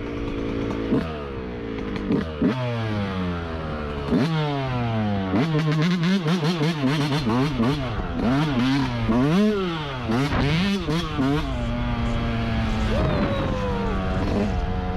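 Yamaha YZ125's 125 cc single-cylinder two-stroke engine revving under riding load. Its pitch climbs and drops sharply three times in the first four seconds, as at upshifts. For several seconds it then swings rapidly up and down with on-off throttle, with some knocks and clatter. It holds a steady pitch and eases off near the end.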